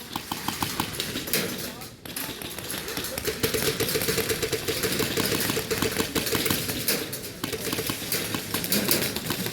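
Airsoft guns firing rapid full-auto bursts, a fast clicking rattle that runs for several seconds from about a third of the way in, with scattered single shots around it.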